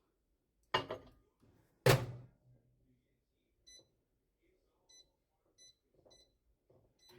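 Microwave oven: two loud thunks of the door, then four short high keypad beeps as the cooking time is entered and started.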